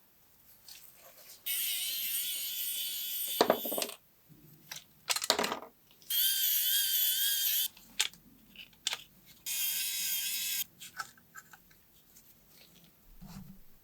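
A small handheld electric power tool, such as a mini drill, whirring in three short runs, the first about 2.5 s long and the others shorter, with clicks and knocks of handling between them.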